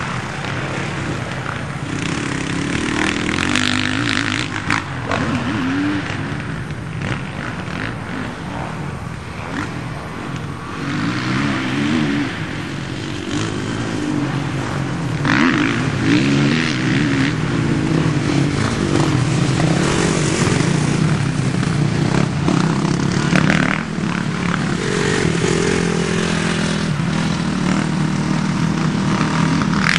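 Motocross bike engines revving up and down, their pitch rising and falling again and again, getting louder about halfway through.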